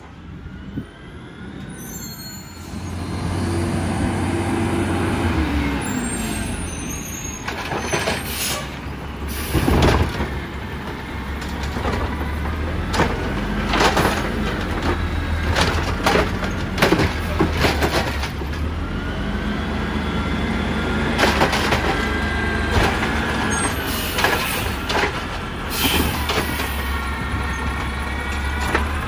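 Peterbilt 320 garbage truck with a DaDee Scorpion automated side-loader arm at work. The engine revs up about two to three seconds in, then rises and falls several times as the hydraulic arm grabs, lifts and tips a wheeled cart into the hopper. Over this run a hydraulic whine and repeated clanks and bangs of the cart and arm.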